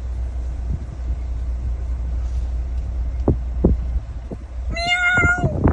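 Steady low rumble of a car on the move, with a few soft knocks. Near the end comes a short, loud, high-pitched cry lasting under a second that drops in pitch as it ends.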